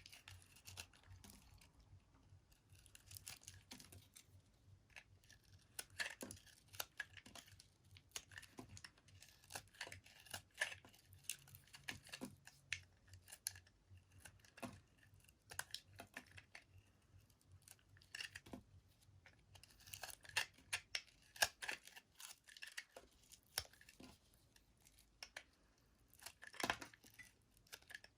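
Knife cutting through bar soap: irregular, crisp little cracks and scrapes, some in quick clusters.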